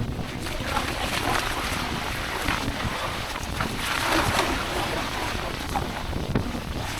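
Wind buffeting the microphone with a steady low rumble, over sea water washing and splashing in surges, the loudest about four seconds in.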